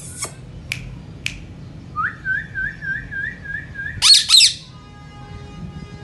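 Indian ringneck parrots calling: a few sharp clicks, then a warbling whistle for about two seconds, then two loud harsh squawks, followed by a fainter steady whistle.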